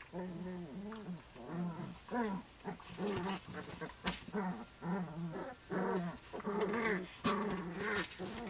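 Puppies growling at each other as they play-fight, a quick string of short growls, one after another.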